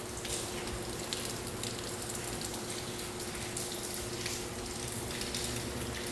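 Steady rain falling, an even hiss with scattered drop ticks, over a faint steady hum.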